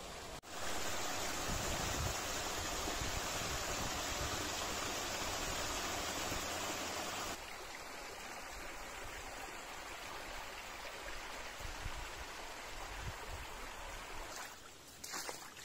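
Steady rushing of a stream's flowing water, louder at first, then dropping abruptly to a softer rush about seven seconds in. A few sharp clicks near the end.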